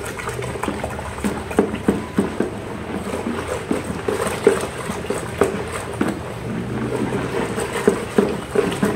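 A plastic stick stirring a thick carbopol-and-water mixture in a plastic bucket: irregular sloshing with knocks of the stick against the bucket, as the mixture is worked to dissolve the remaining carbopol clumps.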